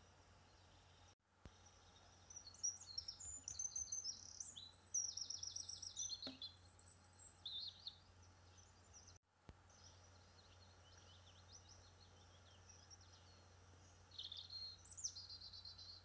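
Garden songbirds singing: bursts of high, quick, trilling notes over faint outdoor background noise. The background drops out for an instant twice where the recordings are cut together.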